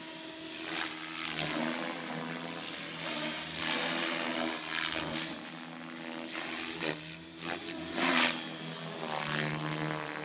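Electric 550-size RC helicopter flying aerobatics: steady rotor and motor drone with a thin high whine, and blade noise swelling into whooshes several times as it manoeuvres.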